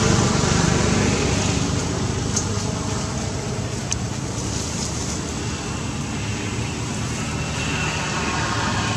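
A motor vehicle engine running, loudest at the start and fading over the first couple of seconds, over a steady traffic hum; two short high clicks in the middle.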